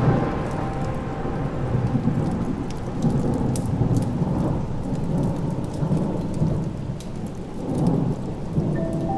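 Steady rain with low, swelling rumbles of thunder and a few sharp drop-like ticks.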